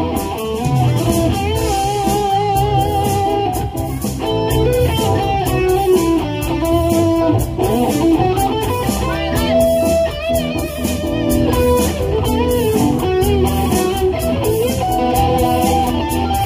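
Live pop-rock band playing an 1980s cover song, with electric guitar, bass guitar, keyboards and drums.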